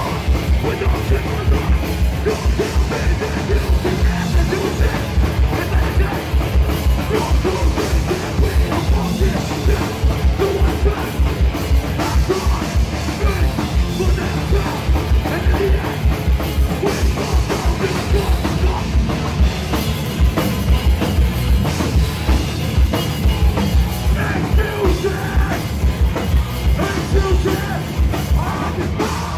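Hardcore band playing live: distorted electric guitars and bass over fast drumming, with rapid, steady bass-drum beats.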